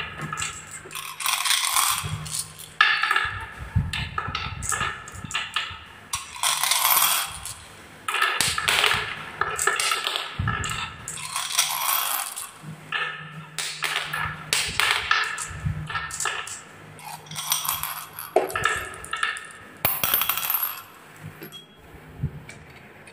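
Glass marbles clicking and clinking as they are set by hand, one after another, into the carved cups of a wooden marble run track and knock against the marbles already there, in irregular clusters of sharp clicks.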